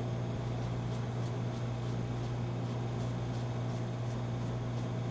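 Chef's knife dicing sugar pumpkin on a plastic cutting board: faint, irregular taps of the blade on the board. A steady low hum runs underneath.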